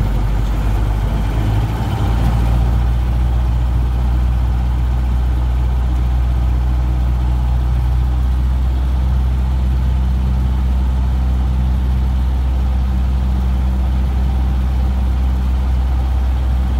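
Cessna 150's four-cylinder air-cooled piston engine running steadily as the aircraft rolls along the runway, heard from inside the cabin, with a slight change in tone about two seconds in.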